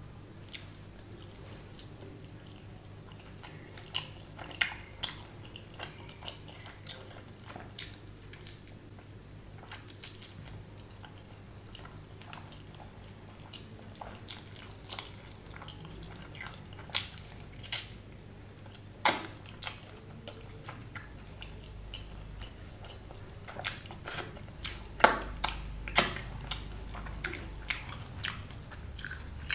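Close-miked chewing and biting of a chicken lollipop, with short sharp mouth clicks scattered throughout. The clicks come more often and louder near the end.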